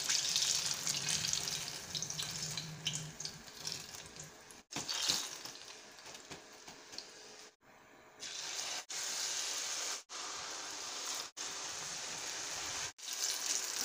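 Hot coconut oil sizzling steadily as batter-coated plantain fritters deep-fry in a pan. The hiss cuts out abruptly and briefly several times in the second half.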